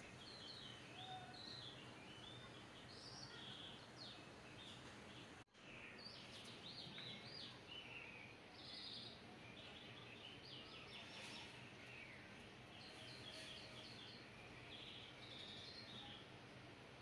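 Faint small birds chirping in short, scattered calls over a steady background hiss, with a brief dropout about five and a half seconds in.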